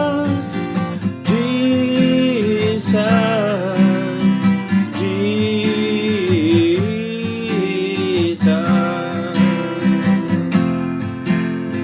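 A slow worship song: a solo voice sings 'Jesus' in long held notes over strummed acoustic guitar.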